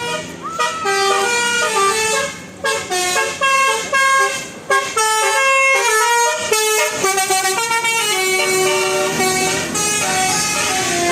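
Telolet basuri musical horn on a large vehicle playing a fast tune of short notes, stepping up and down in pitch with a few brief pauses.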